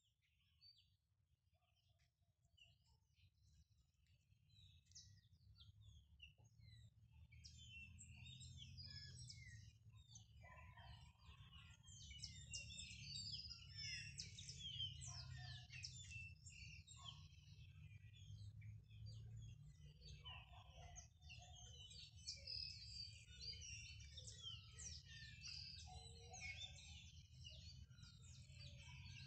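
A chorus of many small birds chirping and singing, fading in over the first several seconds, over a steady low rumble.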